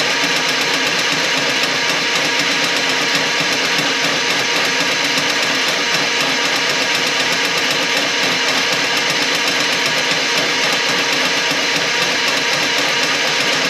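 Motorized drain-cleaning machine running steadily, its cable working through a kitchen drain line plugged with grease.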